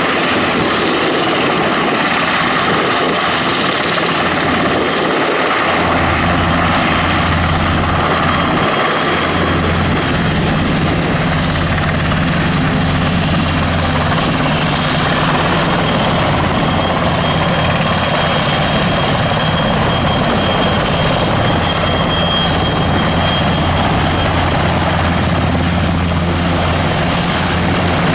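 NH90 military helicopter running on the ground, its twin turboshaft engines and rotors turning: a steady loud rush of rotor and engine noise with a high turbine whine. About six seconds in, a deep low hum comes in and holds.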